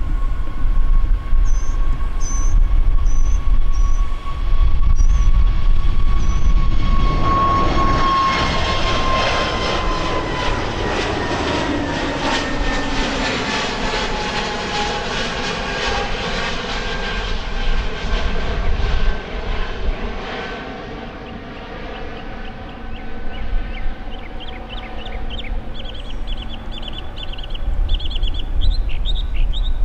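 Jet airliner passing by on departure: the engine noise swells about seven seconds in, then its whine falls steadily in pitch as it goes past and fades away.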